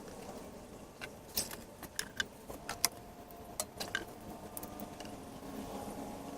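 A series of light, sharp clicks and taps of small hard objects being handled, about a dozen of them between one and five seconds in, some with a brief ring.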